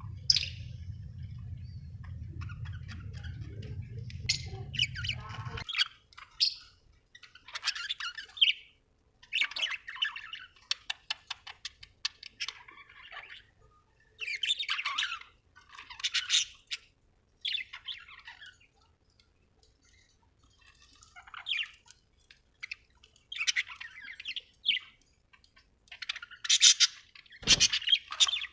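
Budgerigars chirping and squawking in short bursts of rapid chatter, with pauses between bursts. A steady low hum underneath cuts off about six seconds in, and there is a brief low thump near the end.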